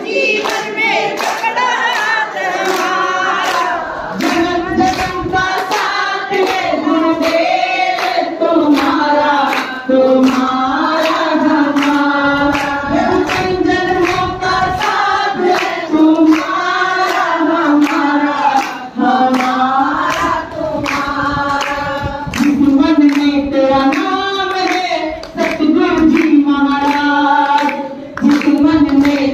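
A congregation, mostly women, singing a Hindi devotional bhajan together. Their hand claps keep a steady beat of about two a second.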